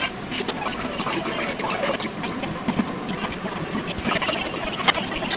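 Kitchen handling noise from food being packed into plastic bento boxes: a steady run of small clicks, taps and rustles, with one sharper knock near the end.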